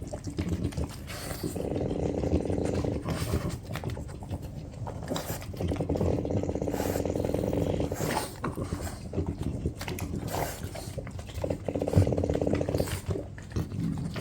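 French bulldog growling in three long spells, with scuffling and clicks between them, typical of a dog guarding food.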